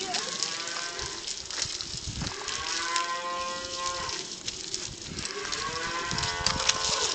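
Cattle mooing: three long calls one after another, each rising and then falling in pitch, over the hiss and patter of a garden hose spraying water.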